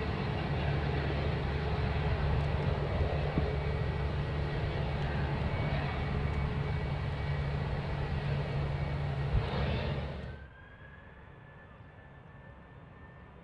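Airbus A320 jet engines running at low power, a steady loud rumble with a whine. About ten seconds in it cuts off abruptly to a much fainter, distant jet whine that rises slightly in pitch as the aircraft begins its take-off roll.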